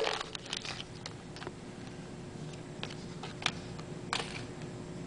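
Football trading cards handled and flipped through by hand: a few short, sharp clicks and snaps about a second apart, over a faint steady hum.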